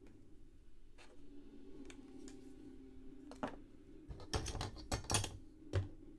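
Handling of cardboard trading-card boxes and packs: a few light clicks, then a cluster of crinkling, rustling handling noises in the second half, over a faint steady hum.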